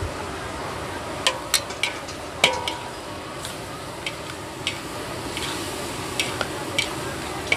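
Two metal spatulas scraping and clinking against a large metal wok as greens and sliced meat are stir-fried, with a steady sizzle underneath. A cluster of sharper clangs comes between one and three seconds in, one leaving a brief metallic ring.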